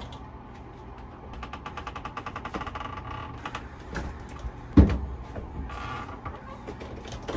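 An RV's entry door and screen door creaking as they are opened, with a single loud knock about two-thirds of the way through.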